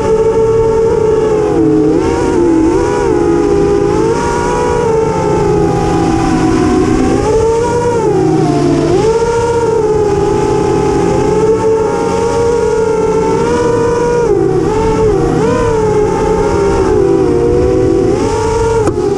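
FPV quadcopter's electric motors and propellers whining, the pitch swooping up and down constantly with the throttle.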